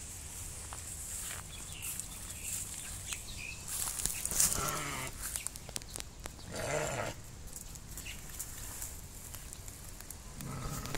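Hissar ram bleating three times, a few seconds apart.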